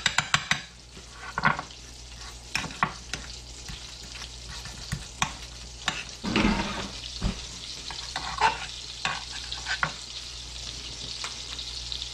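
A frying pan sizzling with a steady hiss, hot and about ready for frying. Over it, a knife taps and scrapes in a small ceramic cup as garlic butter is stirred and spread on a bun, with a longer scrape about six seconds in.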